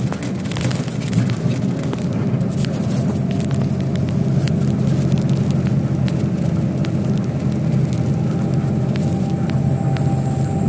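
Engine and road noise heard inside a heavy vehicle's cab while driving: a steady low rumble, with frequent light clicks and rattles.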